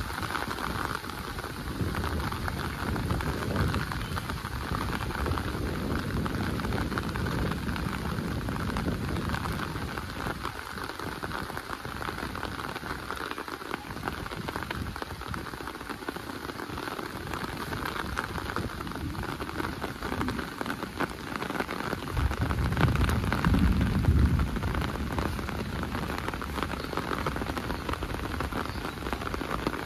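Rain falling steadily, a dense even hiss of drops on surfaces, with a low rumble swelling briefly about three-quarters of the way through.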